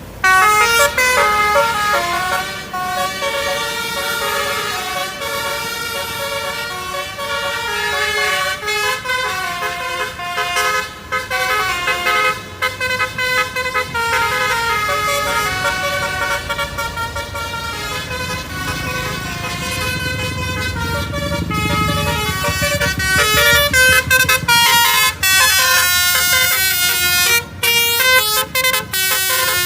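A bus's basuri telolet horn playing a melody in a string of multi-tone notes that step up and down in pitch. Near the end the notes turn into rapid short toots, and a low rumble sits under the tune about twenty seconds in.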